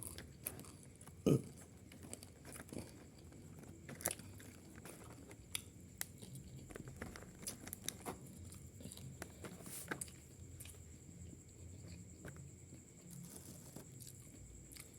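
Close-up eating sounds: chewing and biting into boxed rice and side dishes, with scattered small mouth clicks and one louder low thump about a second in.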